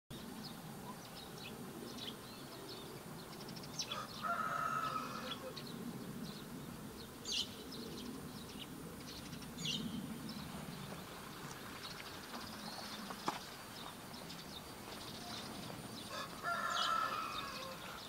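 Rural outdoor ambience: a rooster crows twice, about four seconds in and again near the end, with small birds chirping now and then.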